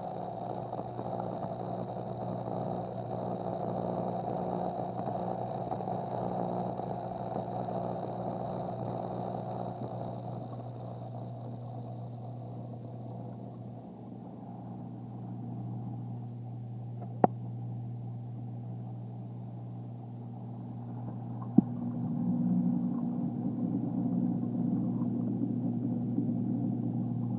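Reef aquarium sump equipment running: a steady electric pump hum over water flowing and splashing. Two sharp clicks come in the second half, and the hum grows louder after the second one.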